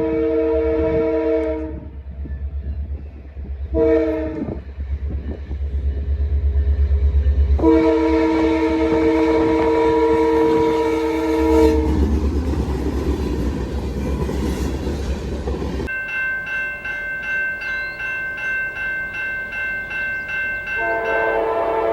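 Locomotive air horn sounding a multi-note chord over the low rumble of the engine: a blast ending about two seconds in, a short toot, then a long blast of about four seconds. This is the close of the long-long-short-long grade-crossing warning. The train then rattles past. After a cut, a higher steady chord with a fast regular pulse plays for about five seconds, and near the end another low horn chord begins.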